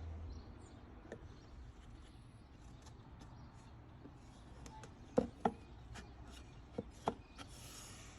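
Light knocks of wood against wood as pieces are handled and fitted: a close pair about five seconds in and another about seven seconds in, over a faint low hum.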